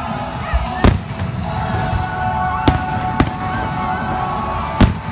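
Aerial firework shells bursting: four sharp bangs, the loudest about a second in and near the end, over music playing steadily underneath.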